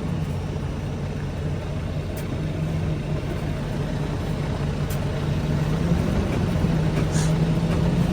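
Diesel semi-truck engine running with a steady low drone, growing slightly louder toward the end.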